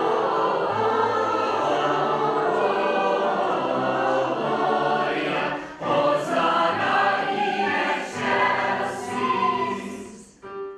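A choir singing a Christmas carol in several voices; the singing fades near the end and cuts off suddenly.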